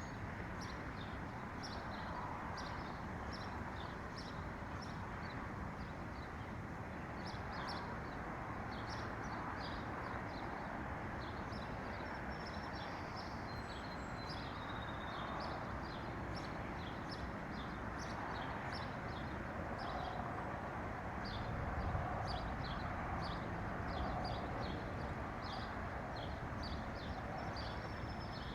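Wild songbirds chirping and singing continuously, many quick high chirps and short phrases, over a steady background rush of noise, with a brief low bump about three quarters of the way in.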